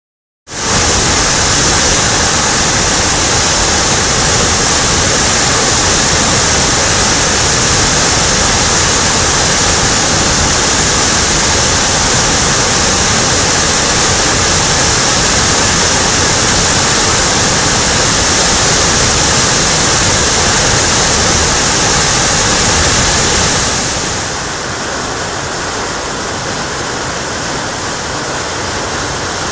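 A swollen river pouring over a rock waterfall: a loud, steady rush of white water that starts suddenly. About three-quarters of the way through, it gives way to a somewhat quieter rushing of rapids.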